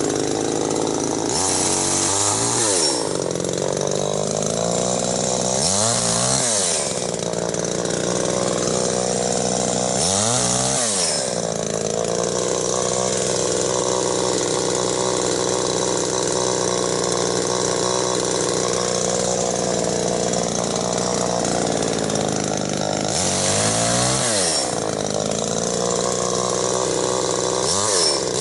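Tanaka 32cc two-stroke rear-handle chainsaw running at high revs while cutting through a thick log. Its pitch drops sharply and comes straight back up five times.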